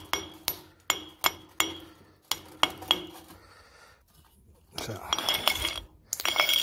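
Sharp, ringing clinks of a saw-scored quartz block being knocked to break out the pieces between the crisscross cuts, about three a second for the first three seconds. Two short bursts of rapid clattering follow near the end.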